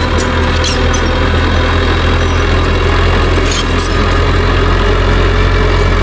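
Small Mitsubishi crawler bulldozer's diesel engine running steadily as the machine works. A few brief metallic squeaks from the steel tracks come near the start and about halfway through.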